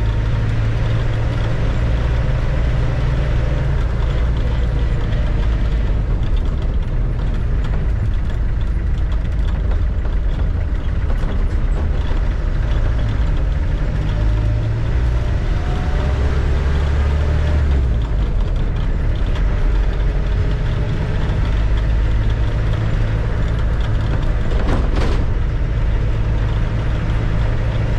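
Land Rover Defender's freshly rebuilt engine running steadily while driving, its note shifting up and down a few times, with a single sharp knock near the end.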